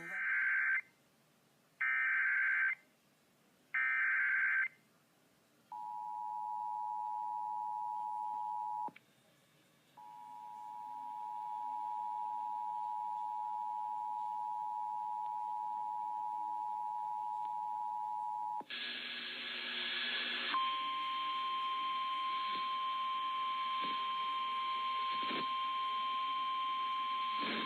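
Three short screeching bursts of EAS SAME digital data, the end-of-message code closing the previous warning. Then the two-tone EAS attention signal sounds, broken by a gap of about a second. About 19 seconds in, a hissy radio feed cuts in with a short burst of noise, followed by the steady single-tone 1050 Hz NOAA Weather Radio alert tone.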